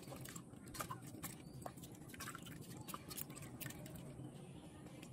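Spatula stirring boiled hog plums in liquid inside an aluminium pressure cooker: faint, irregular clicks and scrapes against the pot with light sloshing.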